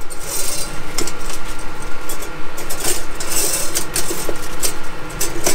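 Slices of toast lifted out of a pop-up toaster's slots: dry scraping and rustling with a few light knocks, heard twice, over a steady machine hum.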